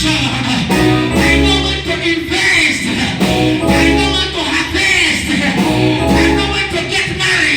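Upbeat band music with guitar over a bass note repeating about every second and a half.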